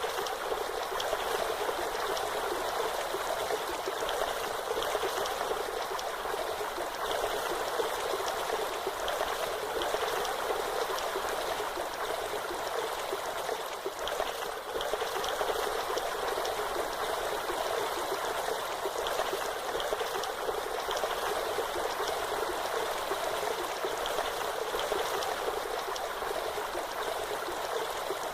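Falling and running water from a waterfall, a steady rushing hiss with no low rumble.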